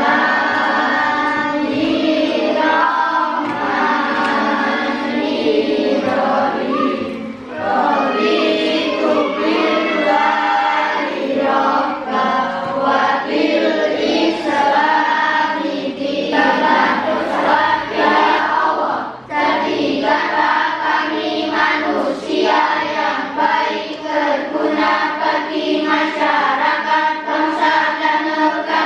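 A class of schoolchildren reciting a prayer together in unison, as a sing-song chant of many young voices.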